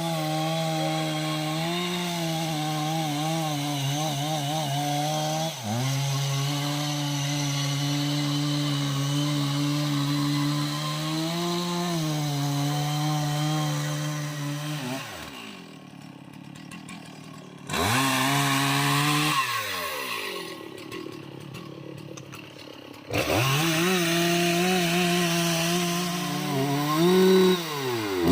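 Two-stroke chainsaw running at full throttle, cutting into aanjili tree wood. In the second half the throttle is let off twice and the engine falls to idle, for about two and then about three seconds, before revving back up.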